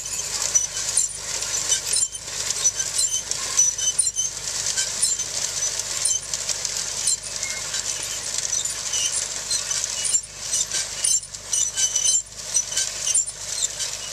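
Oliver Superior grain drill clinking and rattling with many small metallic clicks as a tractor pulls it across rough ground, with the tractor's engine running steadily underneath.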